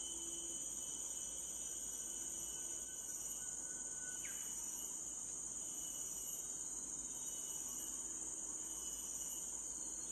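Steady, high-pitched drone of a chorus of insects, unbroken throughout. A faint thin whistle sweeps up and stops about four seconds in.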